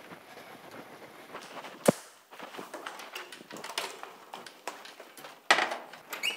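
Footsteps and clanks on a steep metal ladder, with scattered knocks and clicks. A single sharp, loud knock comes about two seconds in and a louder clatter about five and a half seconds in.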